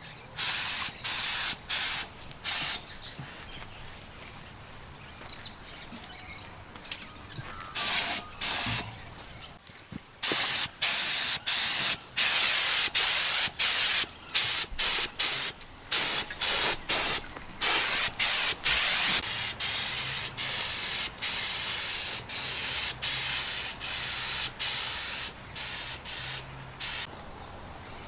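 Compressed-air paint spray gun with a gravity-feed cup hissing in short bursts as the trigger is pulled and released, laying on a coat of paint. The bursts are few and spaced at first, then come quickly one after another from about ten seconds in.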